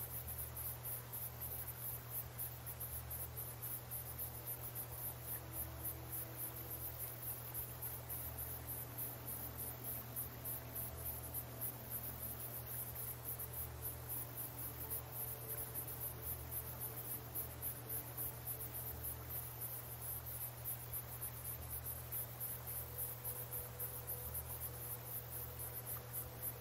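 Crickets chirping in an even, pulsing rhythm of several chirps a second, over a low steady hum.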